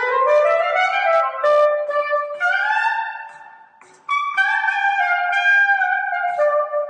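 Improvised solo saxophone playing long held notes that slide up in pitch. It fades out about three and a half seconds in and comes back with a new phrase a moment later.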